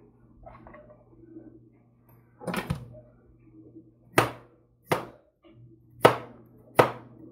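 Chef's knife slicing a raw potato into thin rounds on a thin plastic cutting mat, each cut ending in a sharp knock of the blade against the board. After a couple of seconds of faint handling noise, five cuts come roughly one a second.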